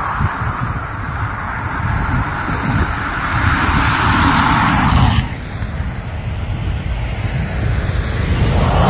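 Jet airliner engine noise, loud and steady, over a fluttering low rumble of wind on the microphone. About five seconds in the higher part of the noise cuts off abruptly and the sound drops to a quieter, lower rumble that builds again near the end.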